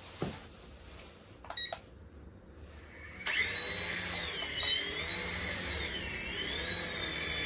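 Small remote-control toy helicopter's electric rotor motors start up suddenly about three seconds in and run with a high whine, the pitch rising and falling as it lifts off. A few faint clicks come before the motors start.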